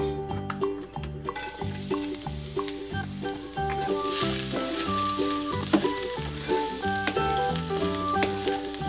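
Minced garlic sizzling in hot cooking oil in a wok while a wooden spatula stirs it. The sizzle starts about a second and a half in and grows louder about four seconds in, over background piano music.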